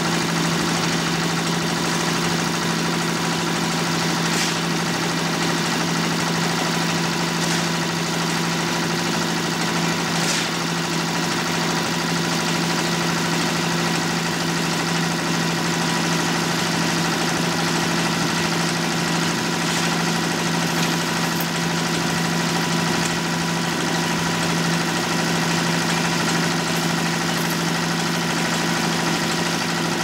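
Engine of a portable drum concrete mixer running steadily, a constant even hum, with a few faint knocks now and then.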